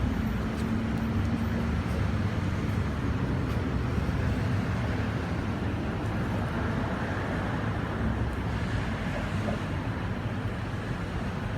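Steady low background rumble, with a faint hum in the first couple of seconds.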